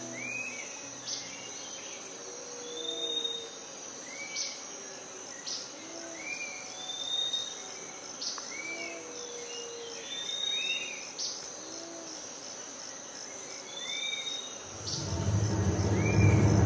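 Nature ambience: a steady high insect trill with short chirping calls repeating every second or two. About two seconds before the end, a loud low rumble swells in and rises.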